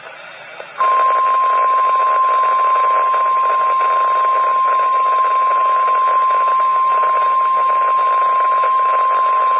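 Emergency Alert System broadcast on NOAA Weather Radio: faint radio hiss, then about a second in a single steady 1050 Hz warning alarm tone starts and holds, with static under it. The tone signals that an urgent weather alert, here a tornado watch, is about to be read.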